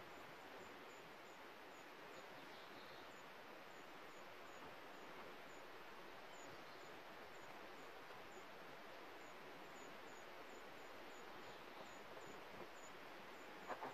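Near silence: faint steady outdoor hiss, with a faint high chirp or tick repeating about twice a second and a couple of soft clicks near the end.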